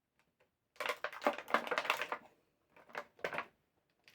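Quick runs of clicks and rattles from hard plastic action-figure parts and accessories being handled and snapped together, in two bursts.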